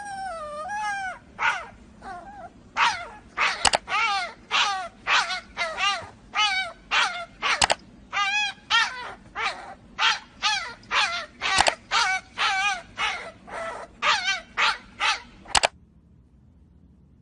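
Kitten mewing over and over, about two short, wavering high cries a second, with a sharp click every few seconds; the cries stop suddenly near the end.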